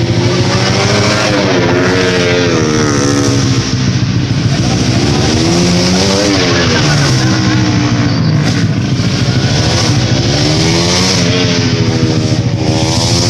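Racing motorcycle engines running hard, their pitch rising and falling several times over a steady low drone.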